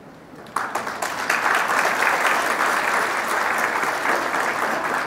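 Audience applauding. The clapping breaks out about half a second in, holds steady, and cuts off suddenly at the end.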